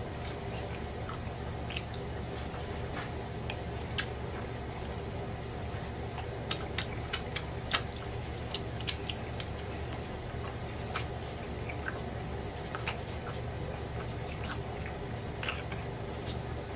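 A person chewing pork chop with gravy close to the microphone: wet mouth clicks and lip smacks, with a cluster of sharper smacks about halfway through.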